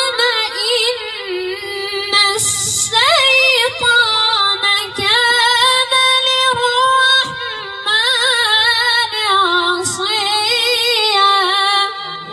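Quran recitation in the melodic tajweed style: a single high voice drawing out a long, ornamented phrase with quavering turns. It breaks off briefly twice, about two seconds in and near the ten-second mark.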